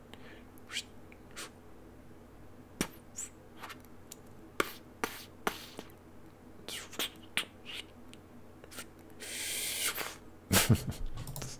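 Faint, scattered small clicks over a low steady hum, with a short soft hiss near the end.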